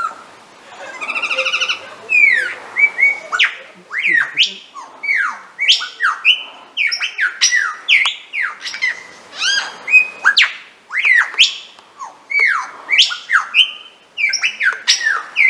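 Superb lyrebird singing: a loud, rapid, varied run of whistled notes with sharp downward and upward sweeps, opening with a short buzzy trill.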